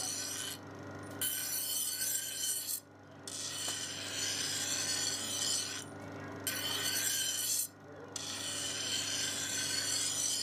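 Steel knife blade ground against a large spinning abrasive wheel: a loud rasping hiss in repeated passes of one to three seconds, each broken off by a brief pause as the blade is lifted, while the edge is ground. A steady low hum runs underneath.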